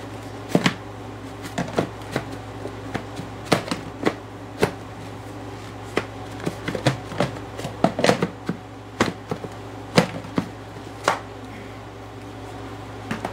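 Irregular sharp clicks and knocks, several a second at times, from the plastic parts of a Hoover vacuum being handled. A steady low hum runs underneath.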